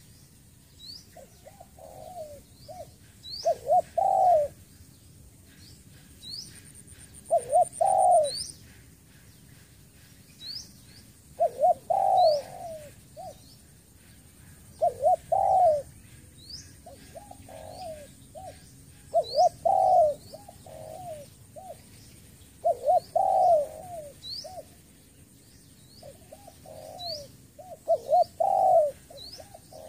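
Spotted dove cooing, its phrases repeating about every four seconds. Short, high, rising chirps from another small bird come in between the phrases.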